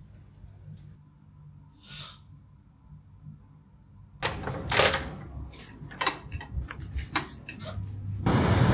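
Low room hum, then from about four seconds in a quick, irregular run of sharp clicks and knocks; near the end a louder steady noise comes in.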